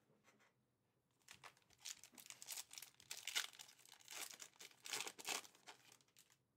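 Foil wrapper of a Fleer Ultra Marvel trading-card pack crinkling as it is torn open by hand, starting about a second in, with the loudest crackles in the second half.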